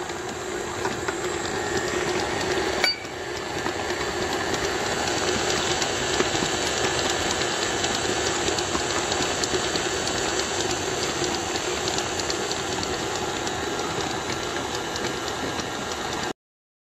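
KitchenAid Artisan stand mixer running steadily, its flat beater mixing flour into creamed butter and sugar for sugar cookie dough. A single knock comes about three seconds in, and the sound cuts off suddenly near the end.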